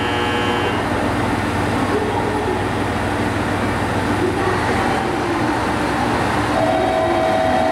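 Kiya 141 series track-inspection diesel railcar running at a station platform as it begins to pull away, its engines giving a steady low hum; a steady higher tone joins about six and a half seconds in.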